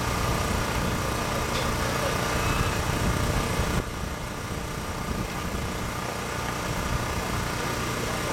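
Steady low background rumble with no distinct events, dropping abruptly in level about four seconds in.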